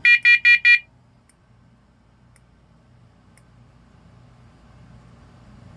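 First Alert SA520 smoke and carbon monoxide alarm sounding its test, four quick high-pitched beeps and then a pause of about five seconds: the four-beep carbon monoxide alarm pattern. A few faint clicks fall in the pause.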